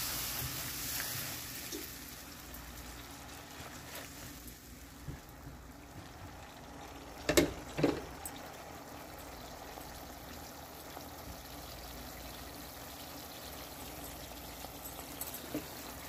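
Spice paste of onion, turmeric and ginger-garlic paste, thinned with a little water, sizzling and bubbling steadily in oil in a nonstick wok as it is fried down. Two sharp knocks a moment apart about seven seconds in.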